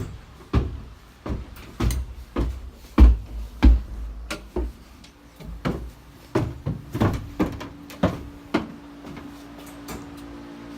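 A run of irregular knocks and clicks, the heaviest two thumps about three seconds in, like things being handled and switches worked. A steady low hum sets in about halfway through.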